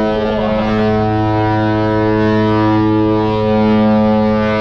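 A cruise ship's horn giving one long, steady, deep blast.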